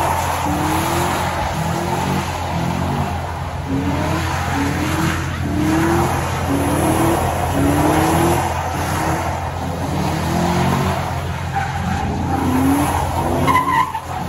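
Pickup truck doing donuts: its engine revs up again and again, about once a second, over the steady hiss of spinning, skidding tyres.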